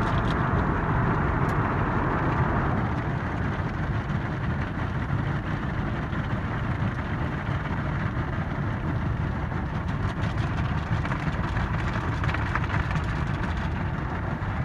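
Belanger in-bay automatic car wash: a spinning cloth side brush and water spray scrubbing a truck's windows, heard from inside the cab as a steady wash noise over a low rumble. The higher splashing hiss eases about three seconds in.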